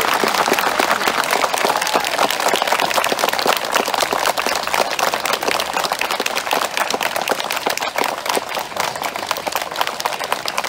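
A large crowd applauding: many people clapping at once in one long, steady round, easing slightly near the end. The applause is a vote for a candidate.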